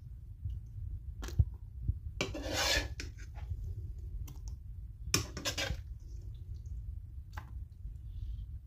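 A metal spoon knocking and scraping against clear plastic food containers as curry is spooned into them. There is a sharp tap about one and a half seconds in, then two longer scraping rattles, one around two to three seconds in and one just after five seconds.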